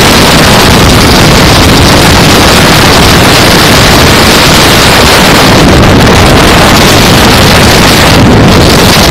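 Loud wind rush on the microphone of a Yamaha Road Star cruiser motorcycle riding at highway speed, over the steady drone of its V-twin engine.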